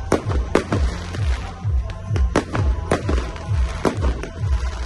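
Fireworks shells bursting with sharp bangs at irregular intervals, over music with a steady bass-drum beat about twice a second.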